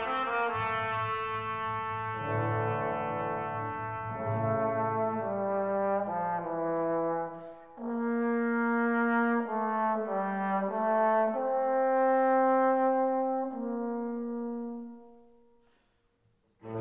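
Classical music: brass playing a slow melody of long held notes, fading out near the end.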